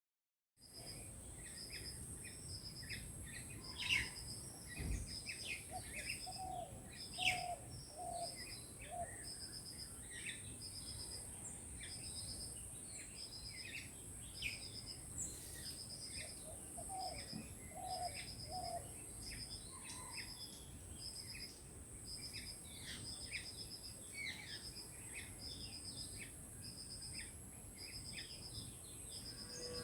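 Many small birds chirping and calling over a steady high insect drone, with a short pulsed trill repeating about once a second. Twice, a run of four or five low hooting notes from another bird.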